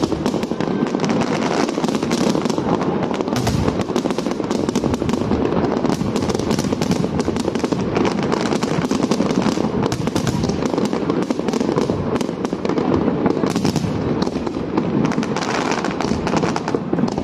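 Aerial fireworks display going off in a dense, continuous barrage: many sharp bangs and crackles, one on top of another, over a steady wash of noise.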